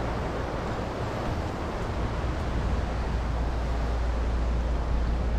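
Steady wind noise on the microphone, heavy and low, over the wash of sea surf breaking on the shore.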